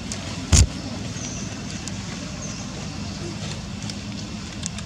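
Outdoor background of a steady low rumble, with a single sharp thump about half a second in and a few faint ticks.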